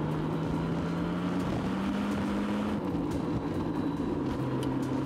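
Honda GL1800 Goldwing's flat-six engine running under way on a gravel road, its note rising from about one and a half seconds in, then dropping back in two steps, over steady tyre and wind noise.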